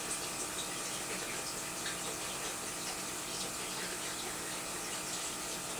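Steady hiss of room tone with a faint hum and a few soft ticks.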